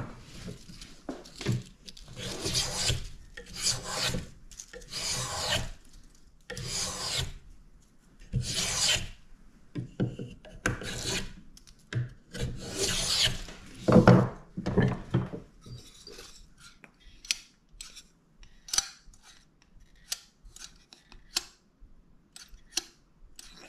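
Small finger plane shaving a spruce violin bass bar: about ten rasping strokes of roughly half a second each, at a steady working pace. After about fifteen seconds the planing stops, leaving scattered short clicks and taps.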